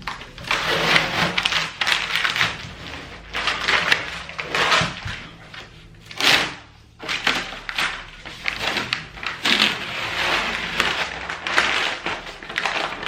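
Self-adhesive vinyl contact paper rustling and crinkling in irregular bursts as it is handled and pulled about on a wooden drawer-unit top, with a few light knocks.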